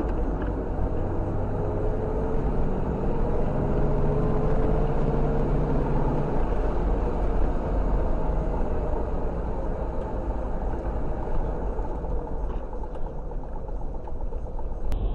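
Steady engine and road noise of a car driving, picked up by a dashcam inside the car. The engine note rises slightly a few seconds in.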